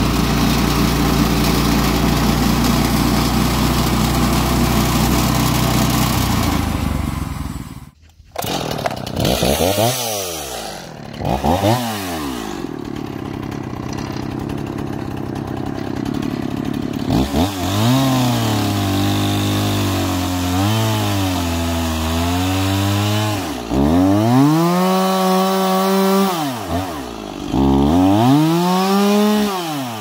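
Woodland Mills HM130Max bandsaw mill's gas engine running steadily while its band blade cuts through a spruce log. After a break about eight seconds in, a gas chainsaw is revved and cut with repeatedly: its pitch climbs, sags and wavers under load as it bites into the wood, then falls away when released.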